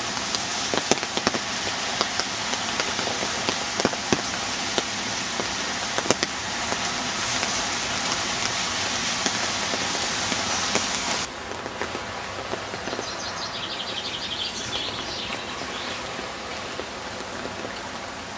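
Steady rain falling, with scattered sharp ticks of drops. About eleven seconds in the sound suddenly turns quieter and duller.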